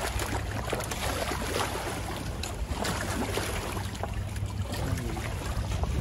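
Shallow river water splashing and lapping against shoreline rocks as a hooked American shad thrashes at the surface, with a steady low wind rumble on the microphone.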